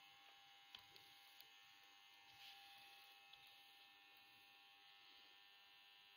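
Near silence: a faint steady hum, with a few faint ticks.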